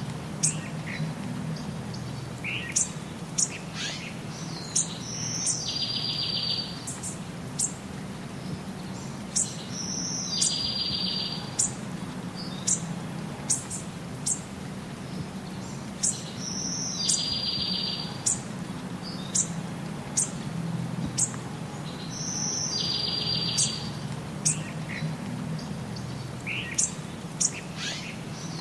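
Birds chirping with short, high calls and a buzzy trill, the same pattern coming round about every six and a half seconds, over a steady low rumble.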